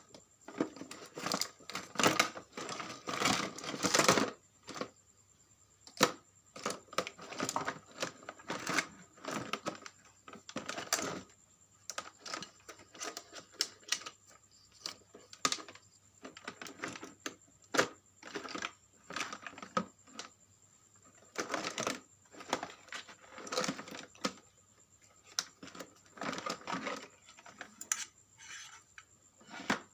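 Irregular clicks, taps and short rattles of hard plastic parts and small tools being handled, as a portable vacuum cleaner is worked on to change its battery.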